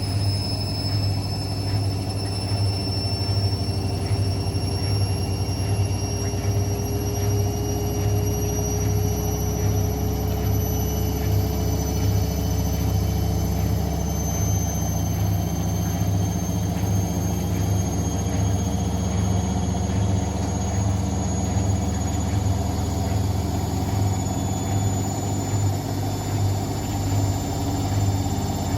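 Hotpoint WML540 washing machine spinning: a steady motor hum under a high whine that rises slowly in pitch as the drum speeds up.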